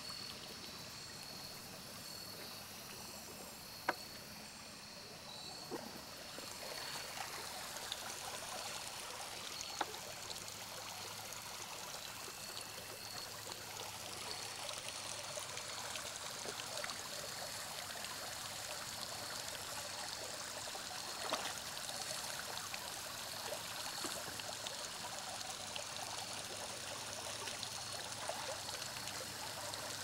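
Shallow creek water running and trickling over rock ledges as a steady, even rush, broken by a few sharp clicks or knocks, the loudest about four seconds in.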